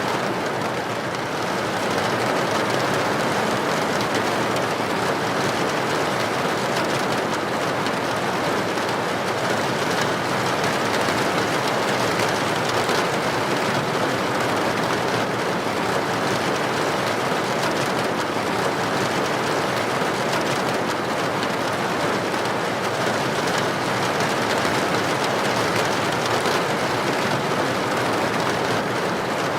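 Heavy rain falling on a tin roof: a steady, dense patter with no let-up.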